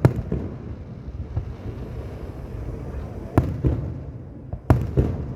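Fireworks bursting overhead: a sharp bang at the start, another about three and a half seconds in and a third a second later, with smaller pops and a low rolling rumble between them.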